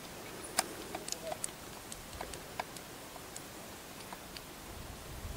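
Faint small clicks and taps, irregular and about a dozen in all, from the lock of a French 1777 flintlock cavalry pistol being handled as its pan is primed.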